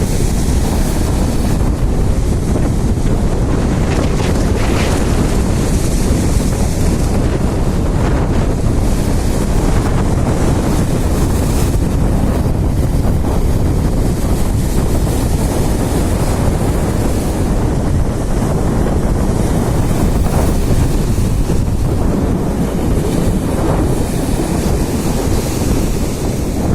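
Sea surf and strong wind buffeting the microphone: a loud, steady rush, heaviest in the low end, with brief surges now and then.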